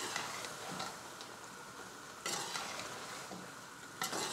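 Slotted metal spoon stirring and scraping boiled spinach through a chicken curry in a metal pot, with three louder scrapes against the pot: at the start, about two seconds in, and near the end. Under it the curry sizzles steadily over a medium-high flame.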